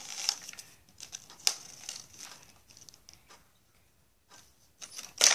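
Rustling and crinkling of a folded paper leaflet being opened out and handled, with a sharp click about one and a half seconds in; it goes quiet for about a second before more handling near the end.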